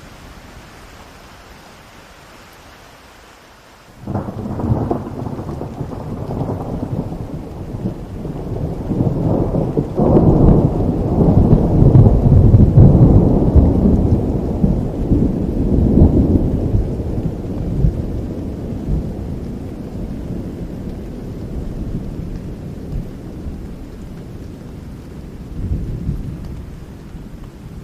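Steady rain, with a thunderclap breaking in suddenly about four seconds in and rolling on as a long low rumble, loudest in the middle and slowly dying away.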